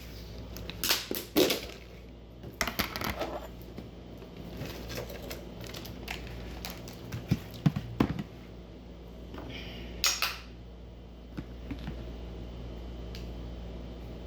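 Spoon scooping sour cream from its container: scattered taps, clicks and short scrapes of the spoon against the container and dish.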